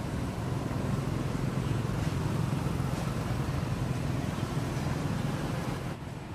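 Steady low rumble with a hiss over it, like engine or traffic noise, getting a little quieter about six seconds in.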